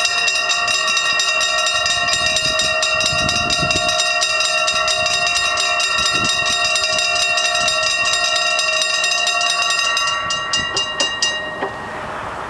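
Old-style mechanical level-crossing bells ringing in a rapid, continuous clatter while the barriers come down. Near the end the strikes slow, come one by one and stop, as the barriers settle fully down.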